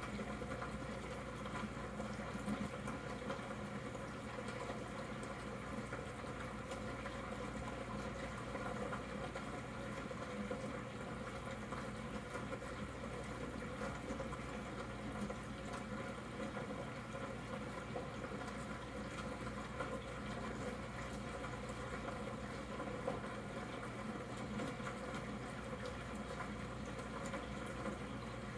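Aquarium air bubbler: a steady stream of air bubbles rising and bubbling at the water surface, with a low steady hum underneath.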